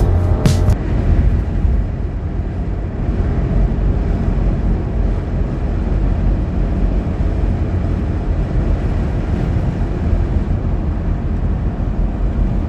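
Steady low rumble of a car driving at speed, heard from inside the cabin: tyre and road noise with the engine under it.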